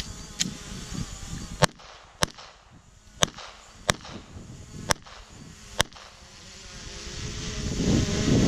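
A handgun fired six times at an unhurried, uneven pace over about four seconds, each shot a sharp crack. After the last shot, wind noise on the microphone rises toward the end.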